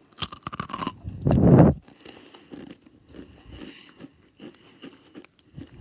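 A Takis Fuego rolled corn tortilla chip crunched between the teeth right at the microphone. It starts with sharp crisp crackling, then comes a louder, duller crunch about a second in, then quieter chewing.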